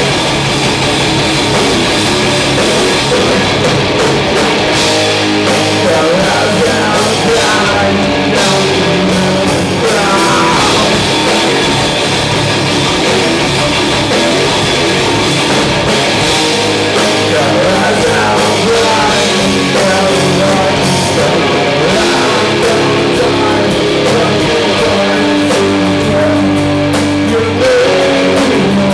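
Loud live metal band playing: electric guitars, bass guitar and drum kit together.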